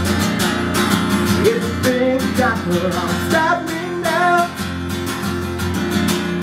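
Acoustic guitar strummed in a steady rhythm, with a man's voice singing sustained, sliding notes over it.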